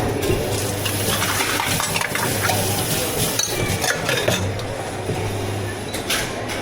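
Utensils clinking and scraping against cups and containers during drink preparation, over a steady low hum that stops near the end.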